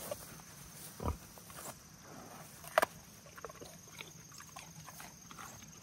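A pig eating a zucchini off the ground: short crunching bites and mouth noises, the sharpest crunch nearly three seconds in.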